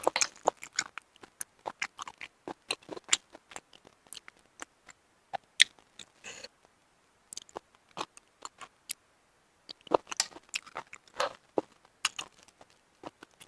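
Close-miked eating of steamed shellfish: wet chewing with sharp clicks and crunches in irregular clusters, broken by two short pauses.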